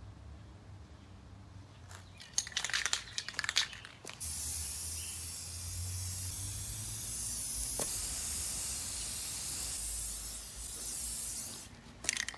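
Aerosol can of Krylon ColorMaxx gloss clear coat spraying in a steady high hiss for about seven seconds. About two seconds of rattling and clicking come before the spray starts, and a few clicks follow it near the end.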